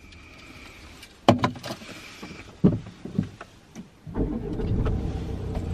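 A car being switched on: a high steady tone for about two seconds, a few clicks and knocks from the controls, then the engine starts about four seconds in and runs steadily.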